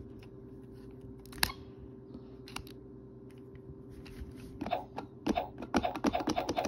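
Plastic letter wheels of a Little Tikes Spell & Spin Pencil toy turned by hand: a couple of single clicks, then about two seconds from the end a fast run of ratcheting clicks as the wheels are spun.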